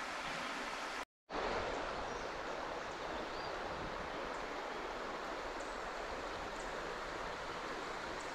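Shallow, rocky river running over stones: a steady rushing of water. It drops out for a moment about a second in, then carries on, with a few faint high chirps over it.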